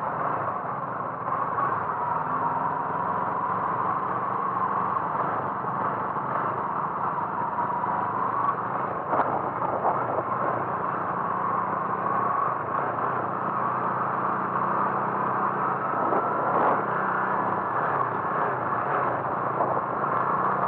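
A motor vehicle running steadily at a constant speed, a continuous engine and road noise with a wavering whine near the middle of its pitch range and a few faint knocks.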